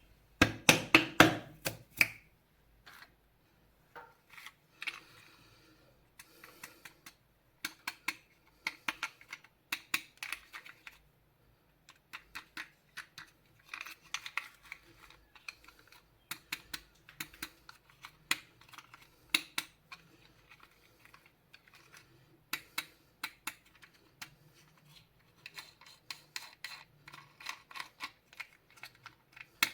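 Toy packaging being handled and opened by hand: an irregular run of small clicks, taps and rustles, loudest in a cluster in the first two seconds.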